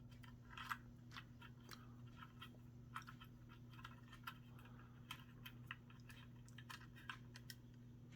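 Faint, scattered light clicks and ticks of a small plastic toy helicopter being handled, over a steady low hum.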